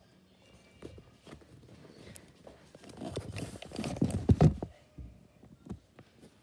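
Handling noise from a hand-held phone being carried: scattered knocks and rustling, with a louder stretch of rubbing and thumps around three to four and a half seconds in.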